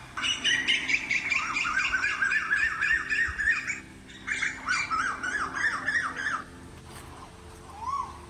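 Birds calling in two bouts of rapid repeated notes, a few seconds each, with a short gap between them, then one short call near the end.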